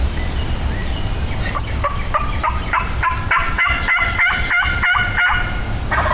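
Wild turkey gobbler gobbling once: a rapid, rattling run of notes that starts a second or so in and grows louder, ending shortly before the close.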